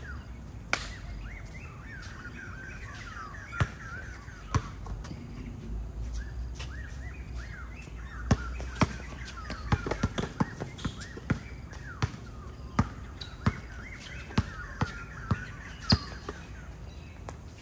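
Basketball bouncing on a hard court: sharp single thuds at uneven intervals, then a steady run of bounces in the second half. Birds chirp throughout.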